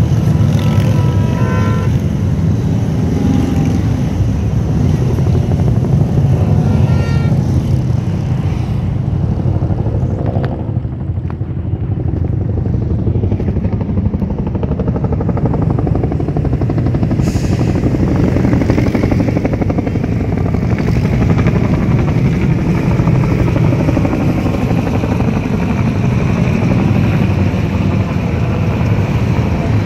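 A pack of motorcycle engines running past in a long column, then a Bell UH-1 Huey helicopter's rotor and turbine overhead, a steady heavy rumble throughout.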